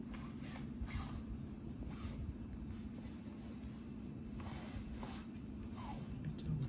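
Soft intermittent rustling and scratching, a dozen or so brief hisses, over a steady low hum.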